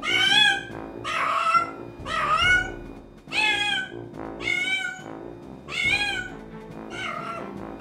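A cat meowing again and again, about once a second, in long drawn-out cries, over background music.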